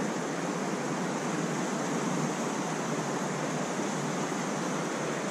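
Steady, even rush of creek water flowing over rocks.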